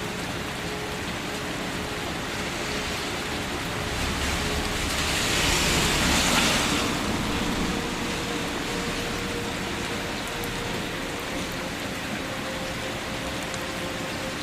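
Steady rain falling, with a swell to heavier rain for a few seconds around the middle.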